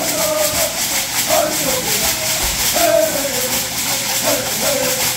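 Stomp dance song: men's voices chanting in call and response over the steady, rhythmic rattle of shell shakers worn on the women dancers' legs.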